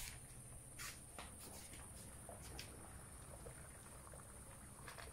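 Faint, sparse light clicks and taps as the lid of a steel cooking pot is lifted and the boiled corn inside is handled, over a steady low hum.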